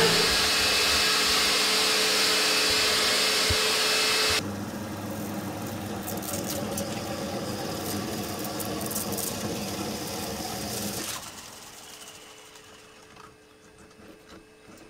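RT-160 core drill grinding through clinker brick with a steady motor whine, loud and close for about four seconds. It then sounds quieter as the bit breaks through the outer wall, and it stops about eleven seconds in.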